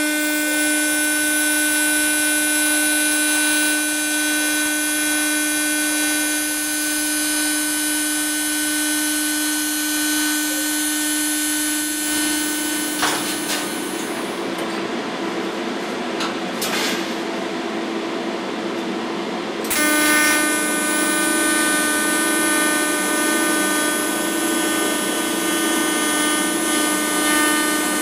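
TIG welding arc on stainless steel pipe, run as a fusion weld without filler wire: a steady buzzing whine over hiss. It thins out about halfway and comes back strong about 20 seconds in.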